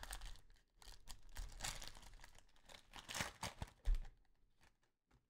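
A trading-card pack's wrapper crinkling and being torn open, in several rustling bursts, followed by a few soft knocks about four seconds in.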